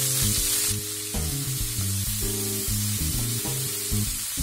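Chopped green cabbage sizzling in hot bacon fat in a frying pan as it is stir-fried. The sizzle is strongest at first and eases about a second in. Background music plays under it.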